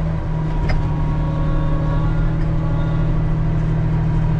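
Heavy farm diesel engine running steadily under load with a constant low drone. A single short click sounds just under a second in.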